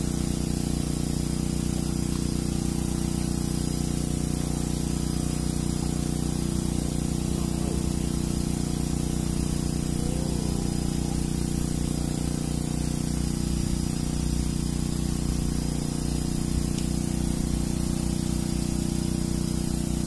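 Steady low hum of a running motor, unchanging throughout.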